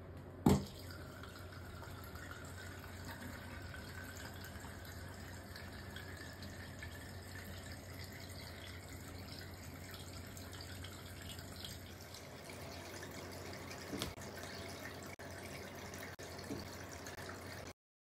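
Soapy wash water draining out of a collapsible mini washing machine's drain hose and splashing onto the floor as a steady trickling flow, after a sharp click about half a second in.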